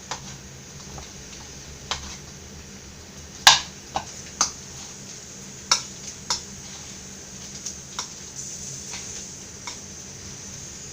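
A ladle knocking and scraping against a bowl as boiled potatoes are mashed: irregular clicks and knocks, the loudest about three and a half seconds in.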